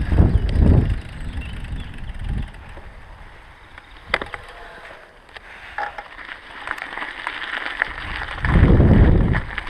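Mountain bike ridden over a rough dirt trail and onto loose gravel: tyre rumble and crunch with scattered sharp clicks and rattles from the bike. Wind buffets the microphone in loud low gusts near the start and again near the end.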